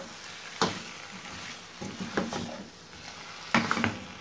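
Chicken pieces in masala sizzling in a stainless steel pan while being stirred with a wooden spatula, which scrapes and knocks against the pan about half a second in, around two seconds and again near the end.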